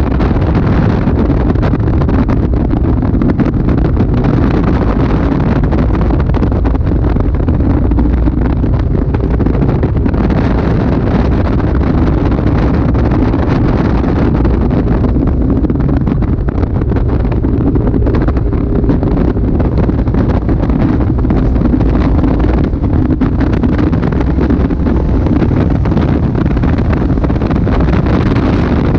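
Caterham Super Seven engine running hard at speed on a track, mixed with heavy wind buffeting on the microphone in the open cockpit.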